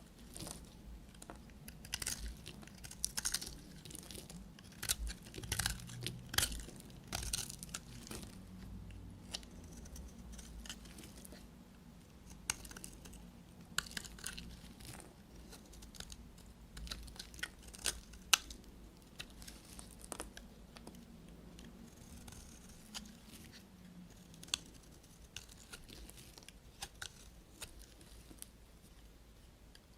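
Knife cutting through dry bar soap: irregular crisp crackles and snaps, thick in the first ten seconds or so and thinning out later.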